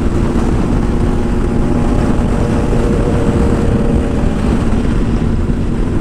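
KTM 390 Adventure's single-cylinder engine running at a steady cruise, its drone holding an even pitch, under heavy wind rush on the rider's microphone.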